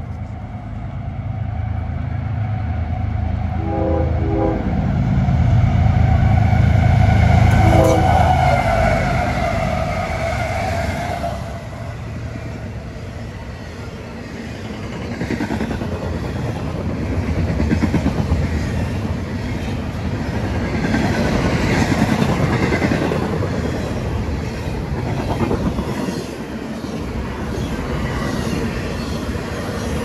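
CSX freight train's GE diesel locomotives passing close by with a deep engine rumble that peaks about seven seconds in, the horn sounding two short blasts about four and eight seconds in. Then the double-stack and trailer cars roll past with steady rail rumble and wheel clatter.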